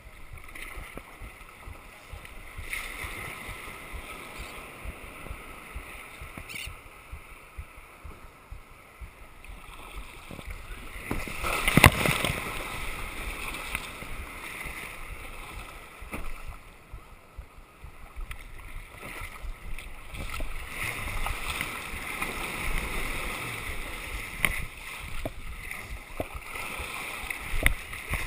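Ocean surf washing and splashing around a plastic sit-on-top kayak as it is paddled, with a loud splash of a wave about halfway through.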